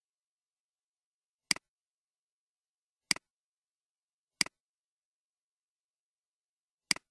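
Four computer mouse clicks, spaced unevenly, each a sharp double click of the button going down and coming back up.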